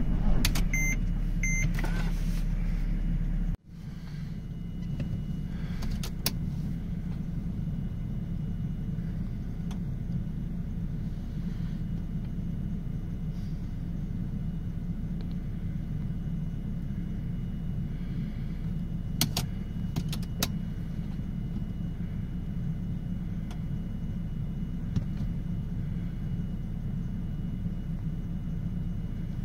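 Mercedes E320 CDI diesel cranking on its starter in −26 °C cold, with dashboard warning beeps. The cranking cuts off abruptly after about three and a half seconds without the engine catching: a failed cold start. A steady low hum and a few clicks follow.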